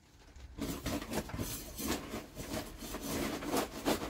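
Perlite being shaken and rubbed through a wire-mesh chip basket used as a makeshift sieve: a gritty rustling and scraping in quick strokes, starting about half a second in.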